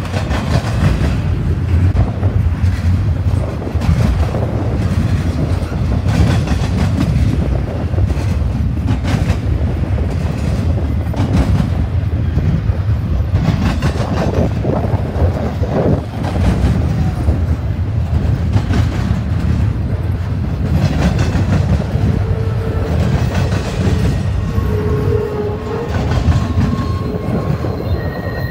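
Double-stack intermodal freight train passing: a steady, loud rumble of loaded container well cars with wheels clicking over the rail joints. A faint high wheel squeal begins near the end.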